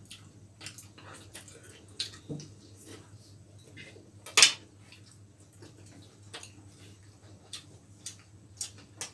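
A spoon and plates clinking and knocking on a dining table in scattered short clicks, with one much louder clink about four seconds in.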